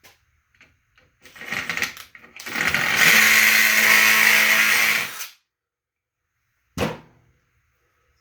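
Electric drill running a step drill bit into the power strip's thin sheet-metal housing to enlarge a hole: a few short starts, then about three seconds of steady drilling under load, and one brief burst near the end.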